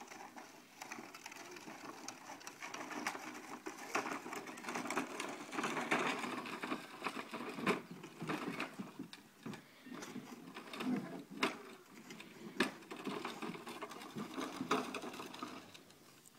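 Small plastic toy wheels rolling over a gravel yard: a continuous crunching rattle peppered with sharp clicks from stones. It grows louder after the first second and fades near the end.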